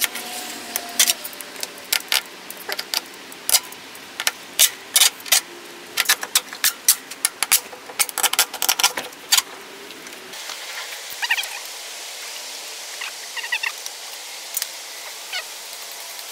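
A long metal tie rod being pushed through a stack of Nissan Leaf battery modules, giving an irregular run of sharp metallic clicks and clinks. About ten seconds in the clicking stops, and a few fainter squeaks and taps follow.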